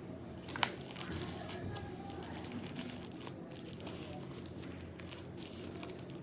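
Plastic packaging crinkling and rustling as a wrapped item is handled and unwrapped, with a sharp click about half a second in.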